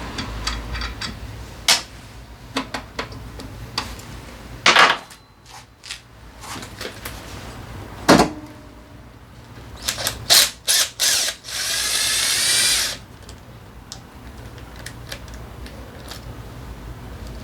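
Hand-tool and metal-part clicks and knocks while the scooter's drivetrain cover is being taken off, with a power tool spinning for about a second near the end.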